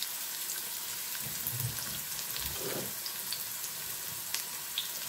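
Chopped garlic and dried red chillies sizzling in hot oil in a small nonstick frying pan: a steady hiss with scattered small pops, the garlic frying toward brown for a tempering.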